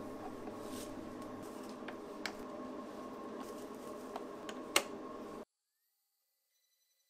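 Small clicks and taps of orange plastic hold-down clamps and a screwdriver being handled as a polycarbonate sheet is clamped to a plywood CNC bed, over a steady hum. A sharp click comes near the end, and then the sound cuts off abruptly to silence.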